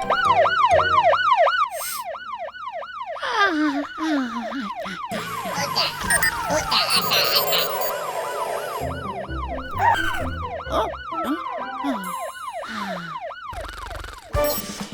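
Cartoon siren yelping, its pitch sweeping up and down about three times a second. A stretch of jingly sound effects breaks it in the middle, and the siren picks up again near the end.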